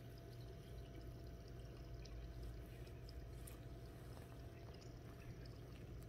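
Faint pond ambience: a steady low rumble with scattered faint small ticks and drips.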